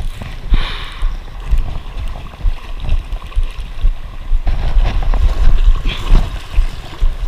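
Gusty wind rumbling and buffeting on the camera microphone, loud and uneven, over the wash of river current flowing around the wading angler.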